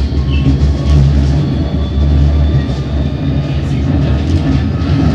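Tram running along street-level track, heard from inside the driver's cab: a steady, loud low rumble of the car and its wheels on the rails, with a faint steady whine above it.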